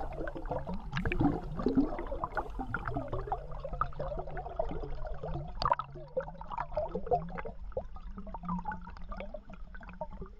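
Flowing river water gurgling and bubbling, with many small irregular clicks over a low rumble.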